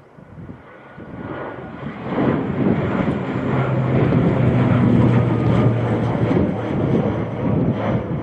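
Boeing 767 jet airliner's engines running loud as the plane passes close by. The sound builds over the first two seconds, holds steady with a low hum, and eases near the end.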